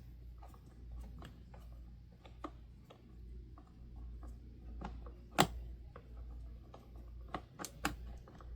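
Scattered light clicks and taps of plastic parts being handled as a Honeywell HT-900 fan's front guard and its fastening screw are worked into place, with one sharper click about halfway through. A steady low hum sits underneath.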